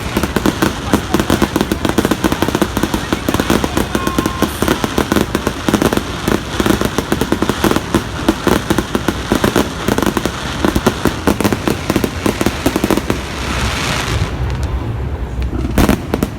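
Fireworks going off in a dense, rapid crackle of many small pops and bursts, thinning out about fourteen seconds in, with one more sharp bang near the end.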